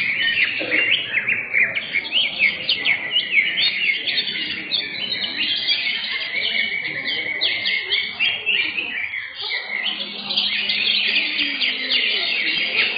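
Cucak hijau (green leafbirds) singing a dense, continuous run of rapid chirps and short whistled sweeps, the competition song of caged leafbirds in a singing contest.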